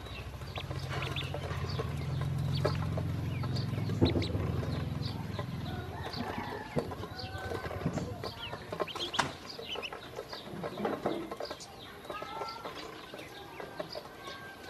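Ducklings peeping while they peck feed from a stainless steel bowl, with many sharp taps of bills on the metal. A low steady hum runs under the first part and fades out about six seconds in.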